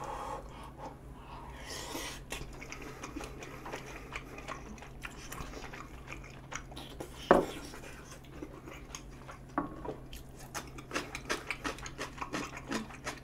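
Close-up chewing of spicy rice-cake tteokbokki: wet mouth sounds with many small clicks, growing busier after about ten seconds. One sharp click about seven seconds in is the loudest sound.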